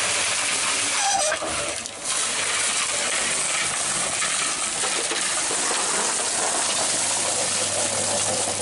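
Drum concrete mixer turning while its drum is tipped to pour out wet concrete: a steady, gritty rush of gravel and cement sliding out of the rotating drum.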